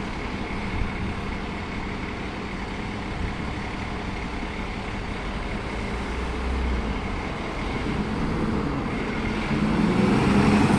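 DAF fire engine's diesel engine running as the appliance pulls slowly out of its station bay, getting louder over the last few seconds.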